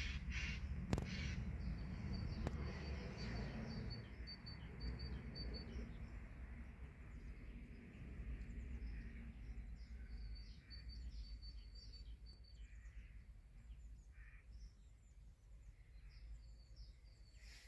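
Faint outdoor ambience: a low rumble that fades after the first few seconds, and a small bird's rapid run of short, high chirps at one pitch, heard twice. A single sharp click about a second in.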